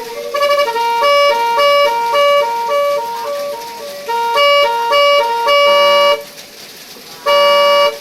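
Termignoni 18-tune 'telolet' multi-trumpet electric horn playing a quick melody of short toots, two or more horn tones at once, changing pitch several times a second. It falls quiet about six seconds in, then sounds one long held chord near the end.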